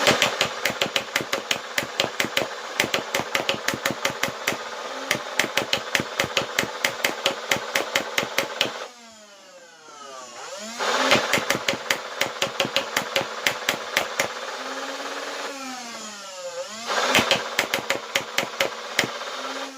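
Nerf Rival Nemesis MXVII-10K full-auto blaster firing foam balls in three long rapid bursts, a fast run of sharp snaps over the whir of its motors emptying the hopper. In the pauses about nine and sixteen seconds in, the motor whine winds down and back up.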